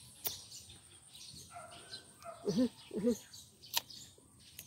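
Birds chirping faintly in the background, with two short pitched calls about half a second apart near the middle and a few sharp clicks.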